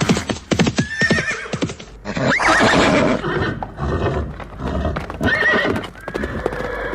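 Horses' hooves clopping on hard ground, with several horse whinnies over them. The clopping is densest in the first two seconds.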